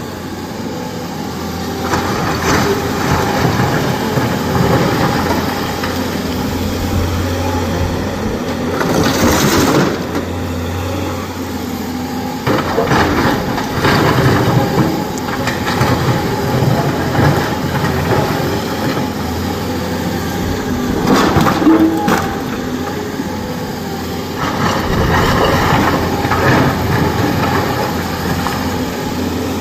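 SANY SY225 crawler excavator's diesel engine running steadily under load while its bucket digs into a pile of blasted quarry rock, with rocks scraping and clattering against the bucket several times.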